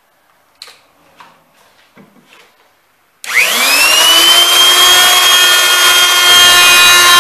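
A few light knocks, then about three seconds in a woodworking router switches on and spins up, its pitch rising quickly before settling into a loud, steady high whine.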